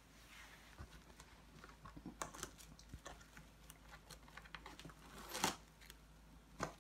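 Kirkland Stretch-Tite plastic cling wrap being pulled from its box and handled: faint crinkles and light clicks, with a louder crackle a little after five seconds in and another near the end.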